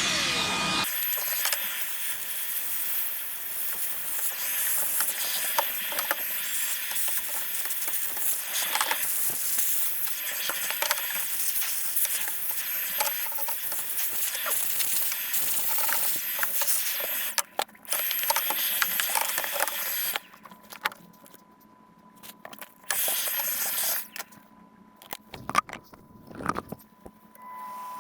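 Cordless cleaning tool running: a steady airflow hiss with a faint high motor whine and scattered small clicks and rattles while the fan convector's dust is cleared. It cuts off and restarts a couple of times in the last third, then only occasional clicks remain.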